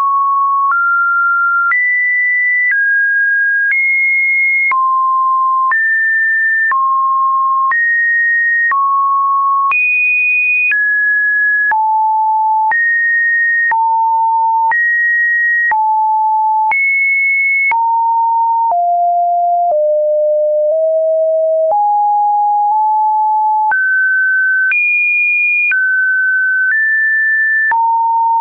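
Electronically generated sine-wave tones, Webdriver Torso-style test beeps: one pure tone at a time, each held about a second before jumping to a new pitch, wandering between about 550 Hz and 2.5 kHz in no melodic pattern.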